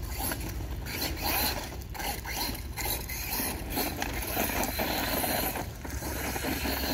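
Redcat Volcano EPX RC truck with a Hobbystar 3650 3500KV brushless motor on 3S driving hard over gravel: the motor and drivetrain run as the tires scrape and throw stones, the sound rising and falling as it accelerates and slows.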